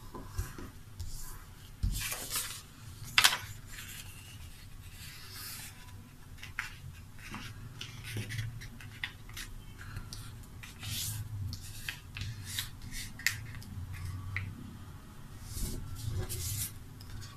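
A sheet of paper being folded and creased by hand: irregular rustles and crackles as fingers press and run along the folds. Two sharper crackles about two and three seconds in are the loudest.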